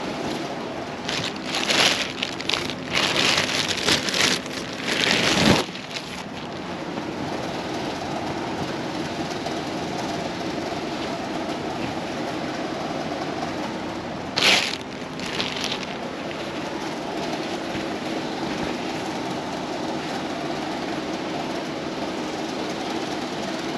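Clothing rustling in bursts as garments are pulled from a pile and held up, over a steady low mechanical hum.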